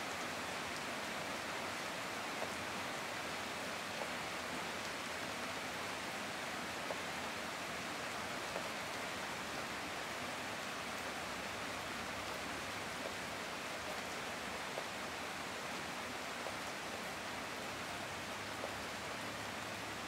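Heavy rain falling steadily, an even hiss with scattered single drops tapping now and then.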